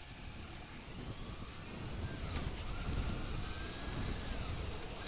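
Motorcycle under way, heard from a rider-mounted microphone: the engine running with a steady rush of wind and road rumble, and faint shifts in pitch as it pulls.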